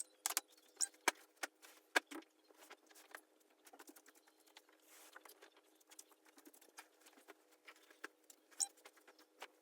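Faint, scattered small clicks and taps, a dozen or so, irregularly spaced, over a faint steady hum.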